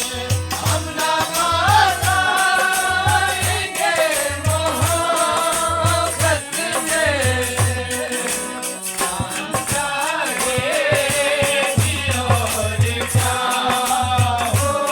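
A song: a voice sings a gliding, ornamented melody over a steady low beat and rattling, shaker-like percussion.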